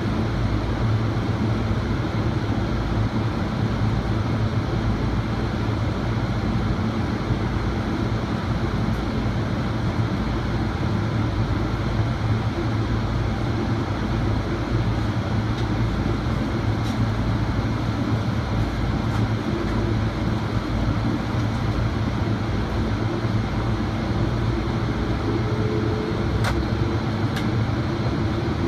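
Steady cabin noise of a jet airliner in flight during its descent to land: engine drone and rushing airflow at a constant level, with a faint rising whine near the end.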